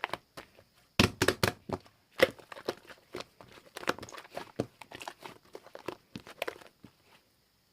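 Mixed slime being squished, pressed and stretched by hand: a rapid run of sticky clicks and pops that stops about seven seconds in.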